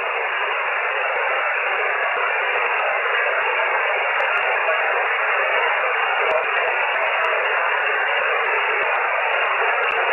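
Shortwave amateur radio receiver on single-sideband giving a steady hiss of band noise, cut off at top and bottom by the narrow voice filter, with no station readable above it.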